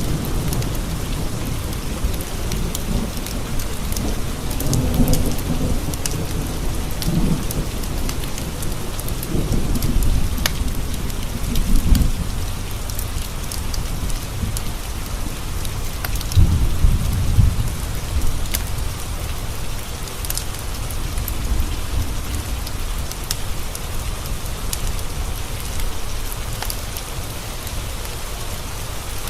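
Steady rain pattering on windowpanes with rolling thunder rumbling low, heaviest through the first twelve seconds and again in a swell around the middle. Scattered sharp crackles from a fireplace fire sound throughout.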